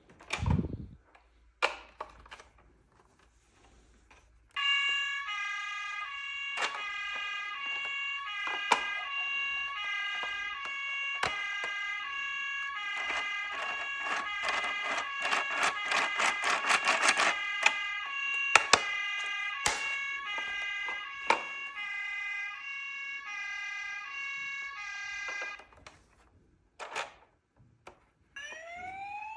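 Electronic siren of a toy emergency vehicle playing a stepped two-tone hi-lo pattern, starting about four seconds in and stopping about four seconds before the end, with sharp clicks and knocks scattered through it. Near the end a rising wail siren begins.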